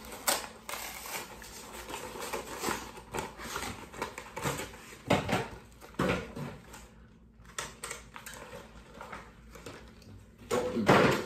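Cardboard and plastic packaging of a Pokémon card pin collection box being handled and opened: scattered clicks, taps and rustling. A louder noise comes near the end.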